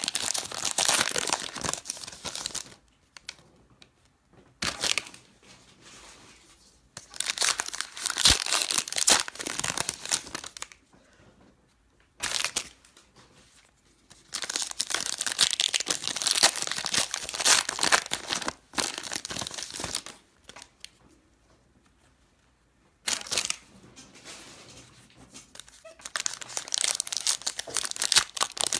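Plastic and foil wrapping on football trading-card boxes and packs being torn open and crinkled by hand, in several bursts with quiet gaps between, the longest lasting about six seconds.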